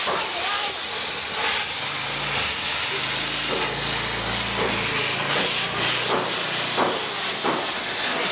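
Gas welding torch flame hissing steadily as it singes the fur off palm civet carcasses, with scattered sharp crackles. A low hum joins in from about two to six seconds in.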